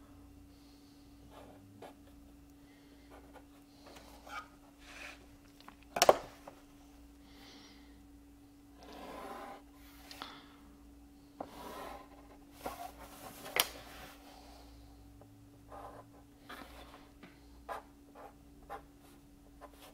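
Pen strokes and a plastic drafting triangle sliding on paper on a drafting board: short scratching and rubbing sounds with two sharp taps, the loudest about six seconds in and another a little past thirteen seconds. A steady low hum runs underneath.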